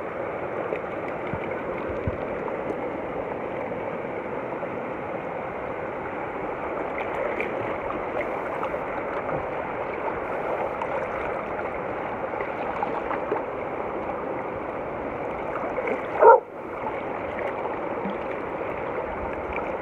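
Shallow river flowing steadily over rocks, a constant rush of water, with one short, loud dog bark near the end.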